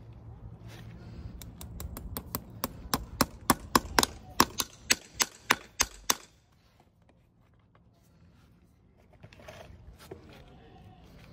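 Farrier's driving hammer tapping a horseshoe nail through a steel shoe into the hoof wall: a quick run of about twenty sharp metal taps, getting louder as it goes, that stops about six seconds in.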